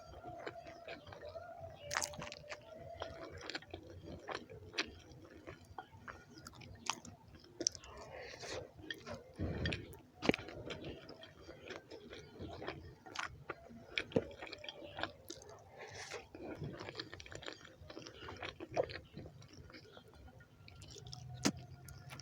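Close-miked chewing of a mouthful of rice and beans: wet mouth smacks and small clicks at an irregular pace.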